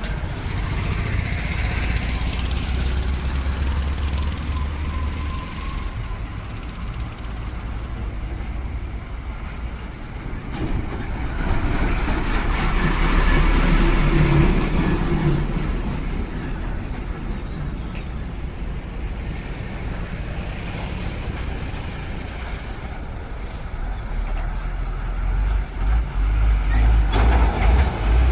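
Tractor-trailer truck braking hard on a highway, its air brakes making a very loud noise that peaks about halfway through, with other heavy vehicles passing.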